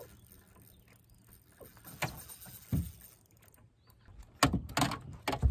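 Knocks and thumps on a small fishing boat's hull: a couple of single knocks, then a cluster of louder, heavier thumps in the last second or so.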